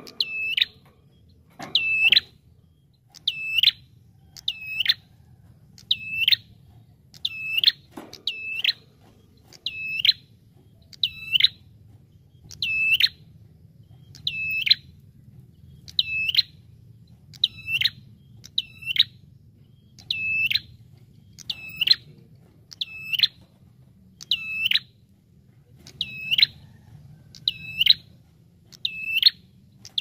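Ashy tailorbird (prenjak) calling over and over, a sharp, high, chirping note about once every second or so, each made of two quick notes, over a faint low hum.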